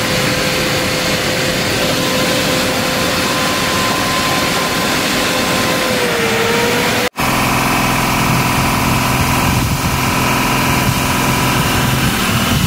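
Truck's diesel engine running steadily at idle after being restarted, the water-contaminated fuel cleared. A steady high whine sits over it for the first seven seconds; the sound then cuts out for an instant and the engine carries on.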